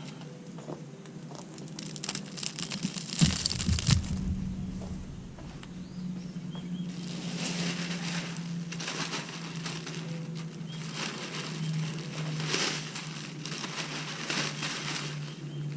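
Mulch being handled and spread by hand: rustling, crunching and crinkling, with a heavy thud about three seconds in, like a bag of mulch being dropped.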